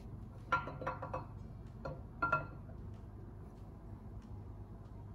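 LS6 camshaft being slid by hand into the cam bore of a 6.0-litre LQ9 LS block. Its steel lobes and journals clink against the cam bearings about six times in the first two and a half seconds, each clink ringing briefly, over a low steady hum.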